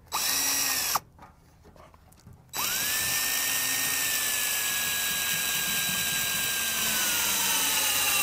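Cordless drill driving a self-drilling decking screw through a metal mailbox's base into a wooden post. A short burst of the motor, a pause, then a long steady run whose whine drops in pitch over the last second or so.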